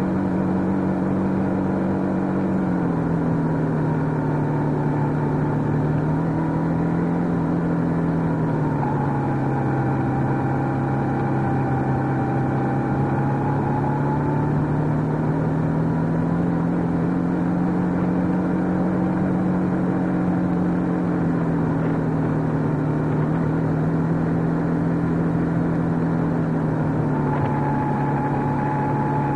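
Motorcycle engine running steadily, its pitch sinking and rising slowly several times as the revs change gently.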